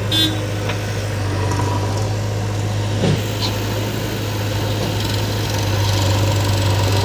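Diesel engine of a working backhoe loader or tractor running steadily, with two brief knocks, one just after the start and one about three seconds in.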